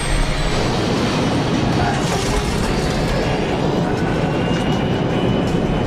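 Boeing 747-400 airliner on its emergency landing roll: a loud, steady rumble and roar of the jet engines and wheels on the runway.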